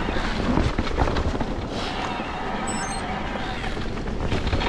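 Electric mountain bike riding over a rooty dirt trail: tyre rumble and steady rattling of the bike, with frequent sharp knocks as it rolls over roots and bumps.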